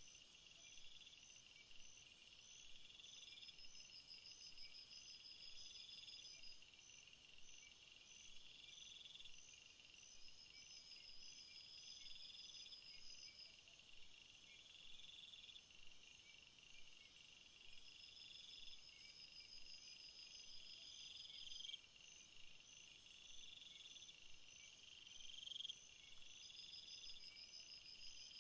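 Faint chorus of insects and frogs: steady, evenly pulsing high chirps, with a short rising trill about every two seconds.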